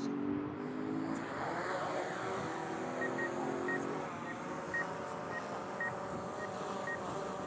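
DJI Mavic 2 Pro quadcopter's motors and low-noise propellers spinning up for takeoff: a buzzing hum that rises in pitch over the first two seconds, then holds steady as the drone climbs and hovers. From about three seconds in there is a faint series of short beeps, about two a second.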